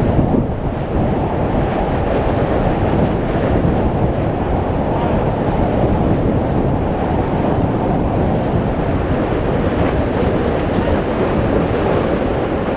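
Steady, loud, low rushing roar from the Litli-Hrútur fissure eruption's erupting vent, with wind buffeting the microphone.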